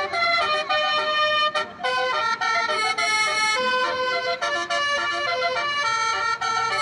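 Twelve-note multi-trumpet vehicle horn playing a tune, the pitch stepping from note to note several times a second, very loud.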